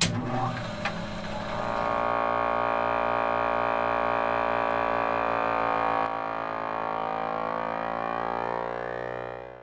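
Intro sound design: a hit at the start, then a sustained synthesized drone chord with an even low pulsing, fading out just before the end.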